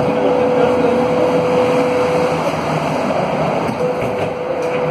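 Alstom AS 02 metro train standing at a station, heard from inside the car: steady running noise from its onboard equipment, with a sustained tone that stops about two seconds in and comes back near the end.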